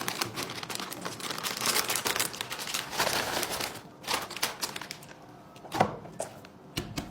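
Crinkling and rustling, as of something crinkly being handled, dense for the first few seconds and then quieter, with a few sharp clicks near the end.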